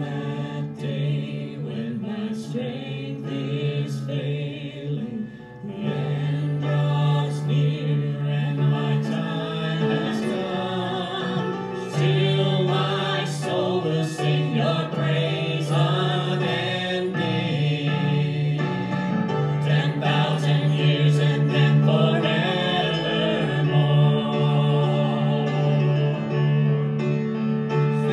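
Worship song sung by a group of voices over a band, with sustained low notes and regular percussive hits; it grows louder about six seconds in.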